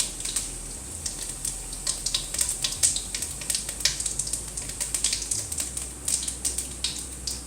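Whole cumin (geera) and ajwain seeds frying in hot oil in a pan: a steady high sizzle with many small, irregular crackling pops.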